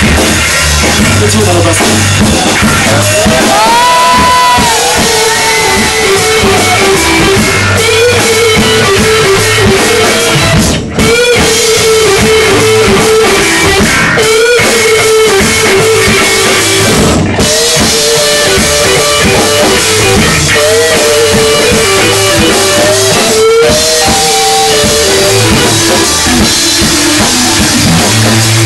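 Live stoner rock band playing loud: drum kit, heavy electric guitars and bass, with a sliding, sustained lead melody line over the top. The sound drops out briefly about eleven seconds in.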